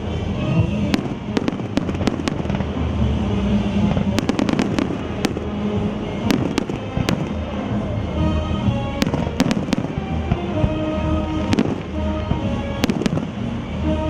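Aerial fireworks show exploding continuously: a dense string of sharp bangs and crackles, with clusters of shots in places, heard over music.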